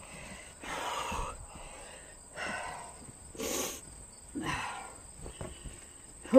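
A person huffing several effortful breaths while getting up from a chair, with clothing rustling as a flannel shirt is handled. A steady high cricket trill runs underneath.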